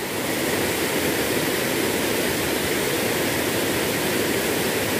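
Steady rush of a small waterfall pouring into a swollen, muddy river.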